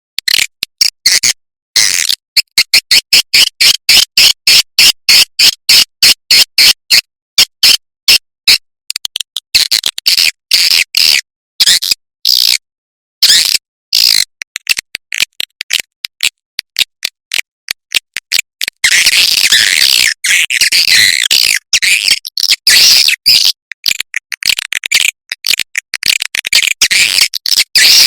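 Recorded swiftlet calls: rapid, high twittering chirps in quick pulses broken by short gaps, turning almost continuous about two-thirds of the way in. This is a swiftlet lure track of the kind played to draw swiftlets to roost in a swiftlet house.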